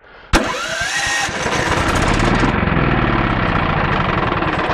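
A 14 hp 420cc small engine on a homemade bandsaw sawmill starts with a sharp click and runs steadily. A rising whine in the first second or so is the mill coming up to speed.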